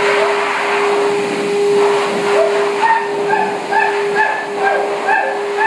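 A basset hound giving short, repeated cries, about two or three a second, starting a couple of seconds in. Under them runs the steady hum and hiss of a pet-wash dryer blower.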